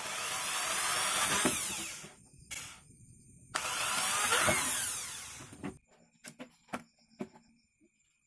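Hand-held electric drill boring bolt holes through a black plastic lid, in two runs of about two seconds each with a short blip between. A few light clicks and taps follow near the end.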